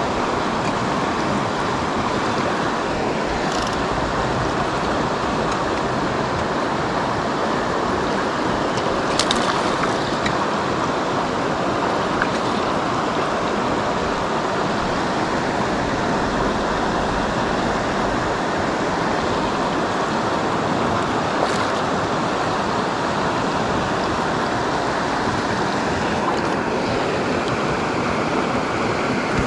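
River water rushing steadily, with a few faint brief clicks.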